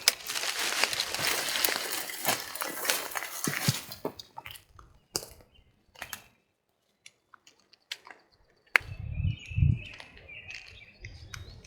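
Rustling and crackling of wet brush and leaves as someone walks through the woods, dense for the first few seconds and then thinning to scattered snaps. A sharp snap and a few low thumps come near the end.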